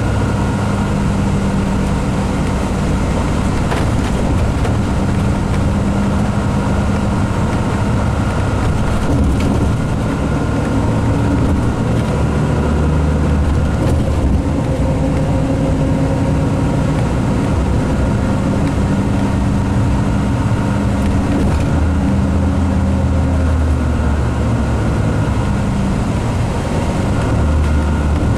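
Inside a moving coach: the Cummins Westport ISX12 G natural-gas engine of a 2016 MCI D4500CT running steadily under way, over road and tyre noise, with a steady high whine. The engine's pitch shifts a little a few times.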